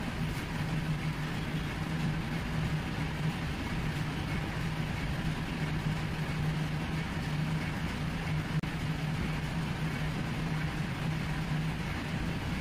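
A steady low hum over constant background noise.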